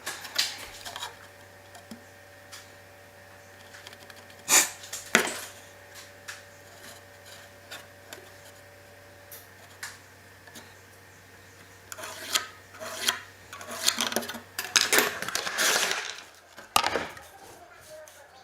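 Wooden workshop parts being handled: a couple of sharp knocks, then a busier run of knocking, clattering and rubbing later on, over a faint steady hum.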